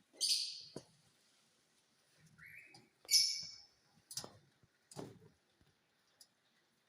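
Ring-necked parakeets calling: two loud, harsh calls about three seconds apart, with a shorter, softer call between them. Several sharp knocks are mixed in.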